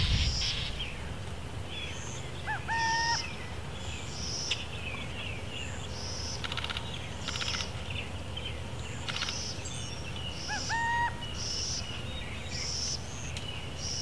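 Burrowing owl calling twice, about eight seconds apart. Each call is a short rising note that then holds one steady tone for about half a second. Short high chirps and trills of other small birds sound throughout.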